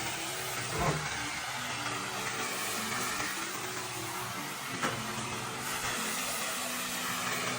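Pressure washer's engine running steadily under the spray noise, with a brief knock about one second in and a sharp click near five seconds.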